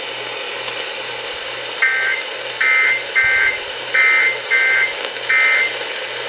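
Weather radio receiver hiss with a low hum. About two seconds in come six short bursts of warbling two-pitch data tones: the Emergency Alert System (SAME) end-of-message code closing the severe thunderstorm warning.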